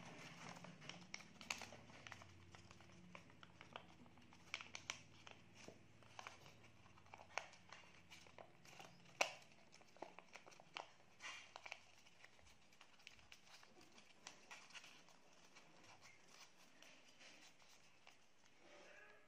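Origami paper rustling and crackling as it is folded and creased by hand: faint, irregular small crackles, the sharpest about nine seconds in.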